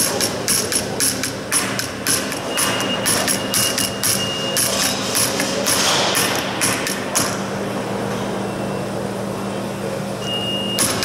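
Hand hammer tapping the metal flange of an aircraft fuselage former held in a bench vise, in a quick run of blows about three a second. This is stretching the flange over the radius of the inner curve. The blows stop about seven seconds in, leaving a steady low hum.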